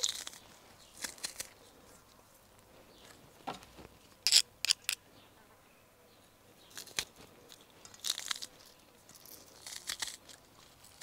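Short crunches and crinkles, scattered a second or two apart, of garlic cloves being crushed in a metal hand garlic press and worked off into a steel bowl.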